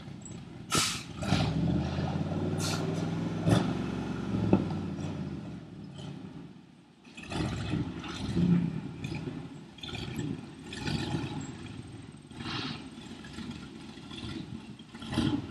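1976 Chevy C65 log truck's engine running as the truck pulls slowly away, with sharp clunks and rattles about one, two and a half, three and a half and four and a half seconds in. After a brief lull the engine comes in uneven bursts: the 'sneezes' of a truck its owner calls sick.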